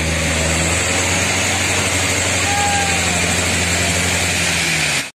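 Diesel engine of a loaded palm-fruit truck running hard at steady revs while bogged in deep mud. It cuts off suddenly near the end.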